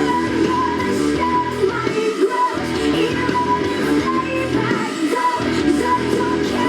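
Hard rock song playing, a female lead vocal singing over guitars.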